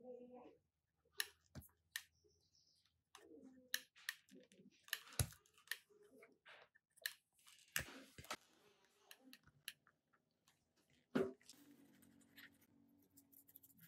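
Faint scattered clicks and taps of metal tweezers and a soldering iron tip against LED leads and a small circuit board during hand soldering. Near the end, a soft bristly scrubbing as a toothbrush is rubbed over the soldered board.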